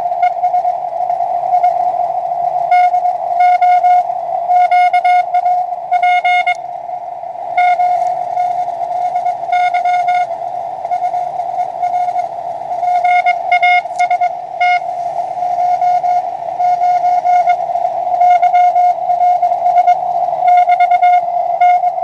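Morse code (CW) on the 20-metre band from a homebuilt SW20 QRP transceiver: a single steady-pitched tone keyed on and off in dits and dahs over a constant hiss of band noise.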